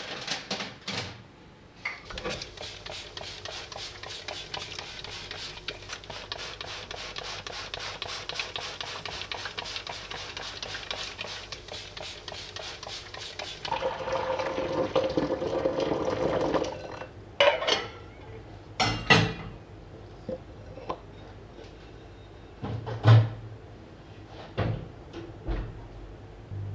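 Kitchen cleaning sounds: a long stretch of rapid scrubbing or rubbing, then about three seconds of what sounds like water running, then several separate clinks and knocks of dishes and objects being handled.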